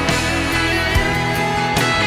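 Background music: an instrumental passage of a rock ballad, with guitar notes held over bass and a few drum hits.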